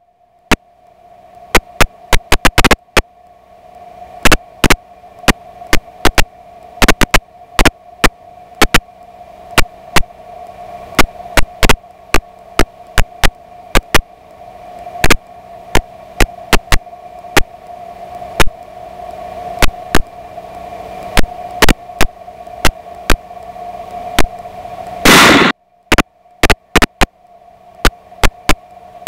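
Hum and static on an aircraft headset intercom: a steady hum that slowly grows louder, broken by frequent sharp static clicks and crackles, with a loud burst of static about 25 seconds in.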